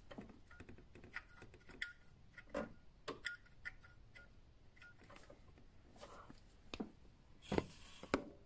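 Faint, scattered clicks and light taps of a hand handling a turbocharger's compressor housing, a few with a short metallic ring.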